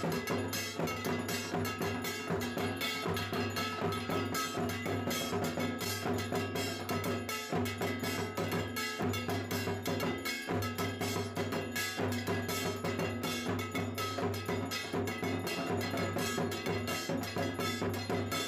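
Background music with a fast, even tapping beat over steady held tones.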